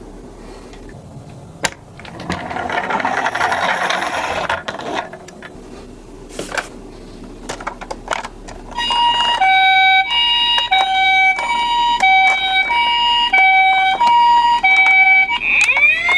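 A toy ambulance minicar's electronic siren plays the Japanese ambulance two-tone hi-lo 'pee-po' pattern, starting about nine seconds in and alternating about every half second, then switches to a rising wail near the end. Before it there is a few seconds of rattling noise and some clicks.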